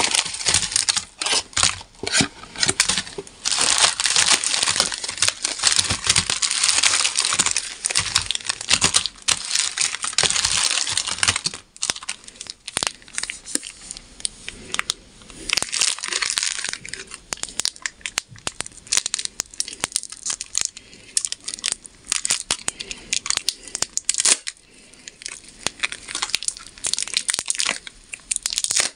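Shiny plastic wrappers of Jubilee chocolate bars crinkling and rustling as handfuls are scooped up and let fall, with a wrapper being torn open. The crinkling is dense for about the first twelve seconds, then thins to scattered crackles.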